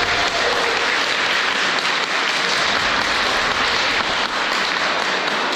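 Audience applauding, steady dense clapping from a seated crowd.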